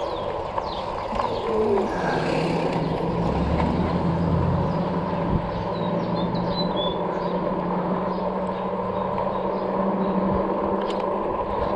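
Steady wind and rolling noise from an electric fat-tire bike ride, with a low steady hum from about two seconds in. Birds chirp briefly in the middle.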